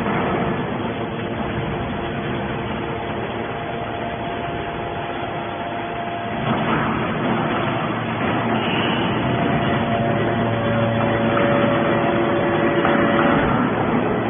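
Hydraulic scrap metal baler running: a steady machine drone with humming pump tones. About six and a half seconds in, the tones shift and the noise grows a little louder.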